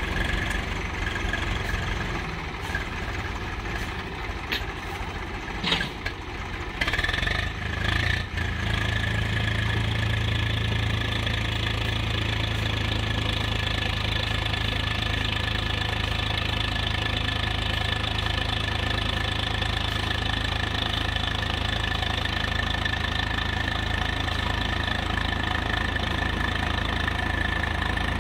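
Swaraj 735 tractor's three-cylinder diesel engine running under load as it strains to pull a sand-loaded trolley out of soft sand. A few sharp knocks come in the first eight seconds, then from about eight seconds in the engine holds a steady, stronger drone.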